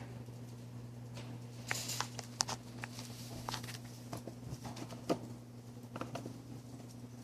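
Pneumatic cylinders and solenoid valves on a PLC-controlled drilling rig clicking and clacking irregularly, with a short hiss of exhausting air, over a steady low electrical hum.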